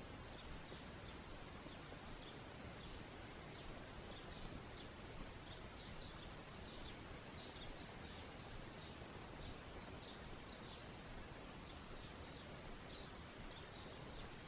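Faint birdsong: short, scattered chirps and twitters over a steady background hiss.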